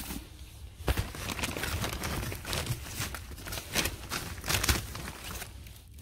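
Wood-shavings bedding being scooped with a plastic scoop from a plastic-wrapped bale and tipped into a plastic bucket: repeated rustling and crinkling, with a sharp knock about a second in.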